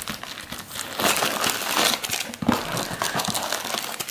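Wax-paper NBA Hoops trading card packs crinkling and rustling as a stack is pulled out of the cardboard box and handled, louder from about a second in.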